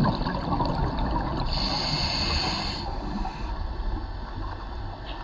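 Underwater sound of a scuba diver breathing through a regulator, heard through a camera housing: a steady low rumble of water and bubbles, with one hiss of inhalation about a second and a half in that lasts just over a second.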